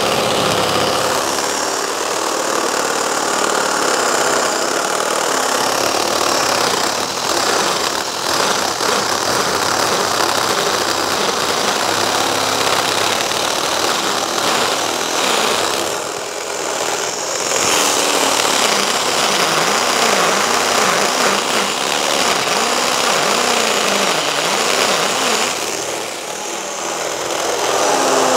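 Mollar MLR-CID20500-U cordless impact drill boring a 20 mm masonry bit into concrete in hammer mode, running steadily under heavy load. It eases off briefly twice, about two-thirds of the way in and again near the end.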